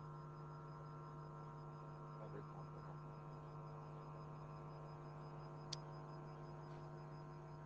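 Low, steady electrical mains hum over quiet room tone, with one faint click near the end.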